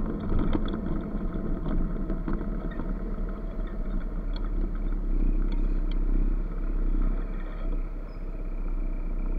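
Motor scooter engine running at low speed with road and wind noise, heard from a camera mounted on the scooter; it eases toward idle near the end as the scooter comes to a stop.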